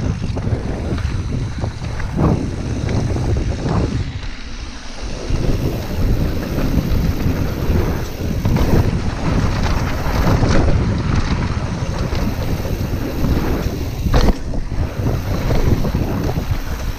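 Wind buffeting the action-camera microphone of a mountain bike riding fast down a dirt forest trail, over steady tyre and drivetrain rumble. Occasional sharp knocks come from the bike going over stones and roots; the sharpest is about 14 seconds in.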